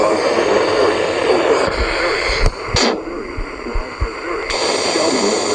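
Radio broadcast audio: an indistinct, muffled voice under steady hiss. About two and a half seconds in there are a couple of sharp clicks and low thumps, and the hiss drops out for about two seconds before returning.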